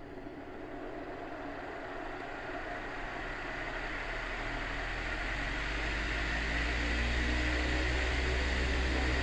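Metal electric fan, freshly taken apart and lubricated, running and spinning up: a steady rush of air over a low motor hum that grows gradually louder.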